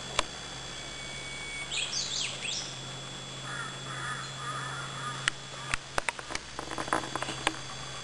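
Forest birds calling, with a few quick chirps about two seconds in. Then, from about halfway, footsteps on a dirt and stone path give irregular crunches and clicks. A single sharp click comes just after the start.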